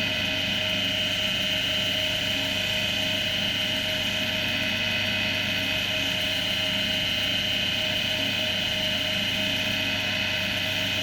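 Axminster AC240WL woodturning lathe running steadily, its motor giving an even hum with a high whine.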